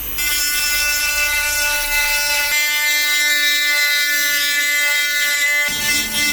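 Small high-speed power tool motor running at a steady speed, a constant whine that holds one pitch throughout.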